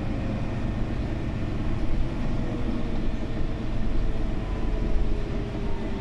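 Interior ride noise of a 2013 Mercedes-Benz Citaro O530G articulated bus with Voith automatic gearbox under way: a steady low rumble of engine, drivetrain and road, with a faint whine slowly falling in pitch.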